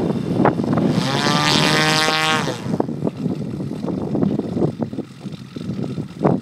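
Giant-scale Fokker Dr.I model plane's engine running on the ground with a low uneven rumble. It swells to a higher, steady note for about a second and a half starting about a second in, then drops back and runs quieter and rougher.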